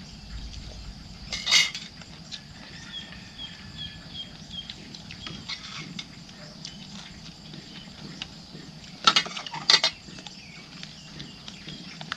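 Cutlery clinking against dishes during a meal. There is one sharp clink about a second and a half in and two more close together near the end, over a faint steady high insect drone.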